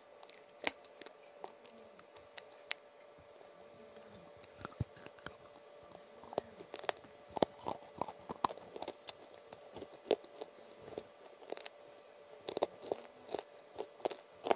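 Close-miked chewing of crunchy baked clay (mitti), with irregular crisp crunches that come in quick clusters in the second half, over a faint steady hum.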